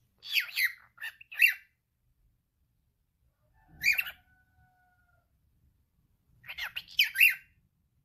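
Male cockatiel chattering in its talking voice, in three short bursts of quick, high calls: one near the start, one about halfway, and one near the end. The middle burst trails into a brief steady whistle.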